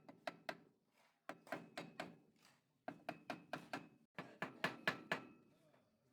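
Hammer tapping on metal in quick runs of several blows, about four a second, with short pauses between runs. Each blow gives a brief metallic ring.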